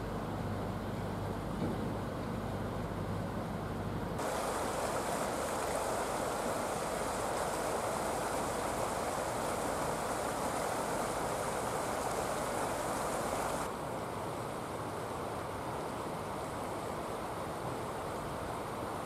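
A steady low motor hum for about four seconds. Then the even rush of the Ahr river flowing over its stony bed, which cuts off abruptly about fourteen seconds in, leaving a quieter outdoor hiss.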